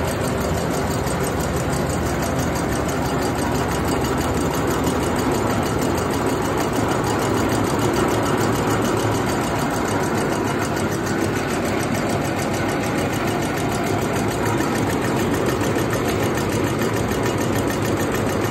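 Tissue-folding machine running steadily, its rollers and folding mechanism clattering in a fast, even rhythm.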